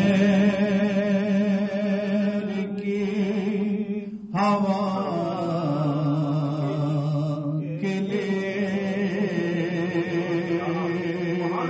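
A man singing a naat with no instruments, in long held notes with a wavering vibrato. The melody steps down in pitch midway, with brief pauses between phrases.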